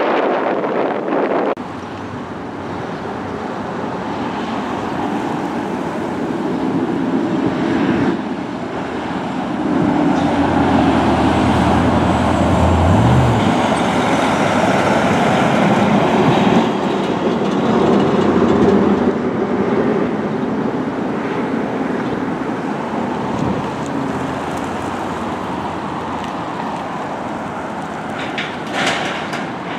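Steady outdoor rumble of vehicles, its character changing abruptly several times, with a low engine hum that rises in pitch briefly near the middle.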